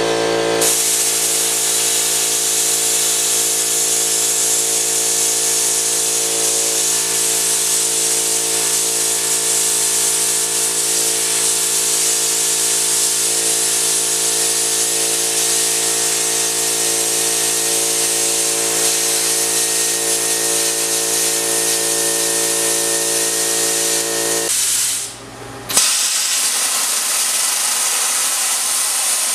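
Harbor Freight Chicago Electric 62204 plasma cutter cutting half-inch plate: a loud, steady hiss of the cutting air with a steady whine of several tones under it. About 25 seconds in it stops briefly, then the hiss comes back without the whine.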